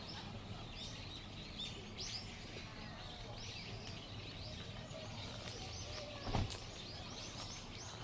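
Many small birds chirping and twittering over a faint outdoor background. There is one short thump about six seconds in.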